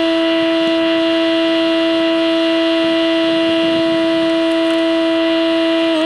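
Steady high-pitched whine from the Kubota BX25D tractor's hydraulic system driving the auger attachment, held at one pitch without a break.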